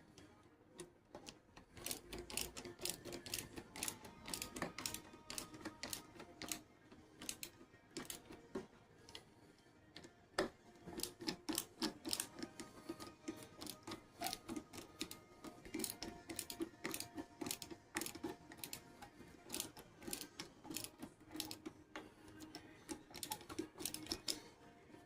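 Rapid clicking of a ratcheting hand tool driving and snugging screws on a pump housing, in uneven bursts of several clicks a second, with a faint steady tone underneath.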